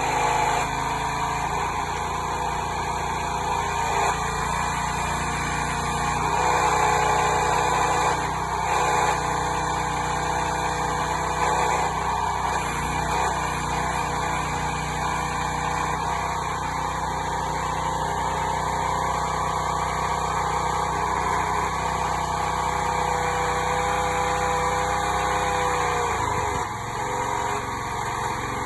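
Backhoe's 9 HP 301cc Predator single-cylinder engine running steadily, powering the hydraulic pump. Near the end the engine note dips briefly, then recovers.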